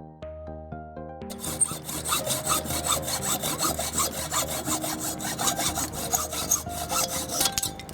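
Hand saw cutting wood with quick, steady back-and-forth strokes. The sawing starts about a second in and stops just before the end, over background music.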